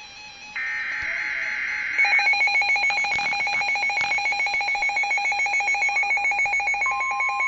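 NOAA Weather Radio alert coming in: a harsh buzzing burst of SAME digital header data, then from about two seconds in a rapid, evenly pulsing electronic alarm beep. Near the end a steady single tone comes in under the beeping, the warning alarm tone announcing a severe thunderstorm warning.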